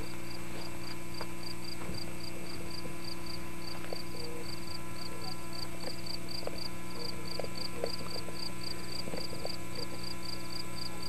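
Steady electrical hum on an old camcorder recording, with an insect, likely a cricket, chirping rhythmically at about four chirps a second, high-pitched and faint. A few soft handling clicks.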